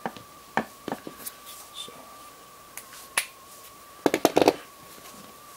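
Folding knives handled on a wooden board: scattered light clicks and taps, then a quick cluster of louder clacks about four seconds in as one knife is picked up.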